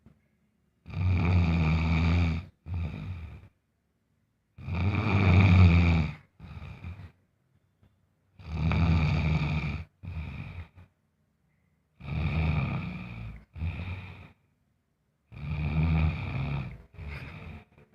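Heavy snoring in a steady rhythm: five snores, each a long, deep snore of nearly two seconds followed by a shorter, quieter breath out, then a pause, repeating about every four seconds.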